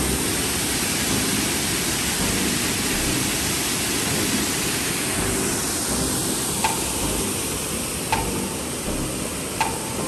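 Steady rush of water pouring over a small concrete weir into a shallow stream, its hiss easing a little in the second half.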